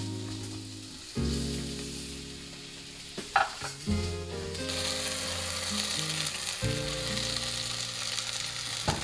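Vegetables sizzling in an enamelled cast-iron pot as dry red lentils are poured in and stirred with a spatula. There are a few sharp clicks, and the sizzle grows louder about halfway through. Soft background music plays underneath.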